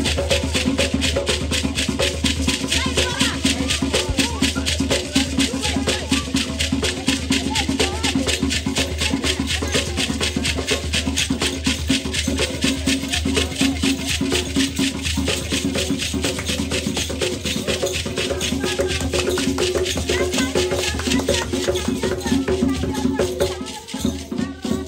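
Djembe hand drums and shaken rattles playing a fast, steady dance rhythm, fading out near the end.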